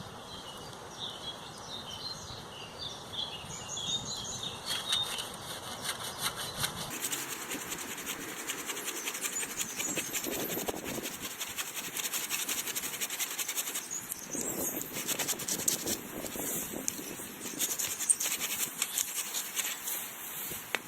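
Hand saw cutting through a small wild cherry tree, in a fast, close-set run of strokes from about seven seconds in. Birds chirp during the first several seconds.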